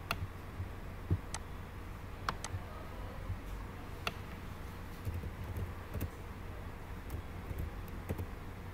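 Computer keyboard keystrokes and mouse clicks, scattered single clicks and short runs, over a low steady hum.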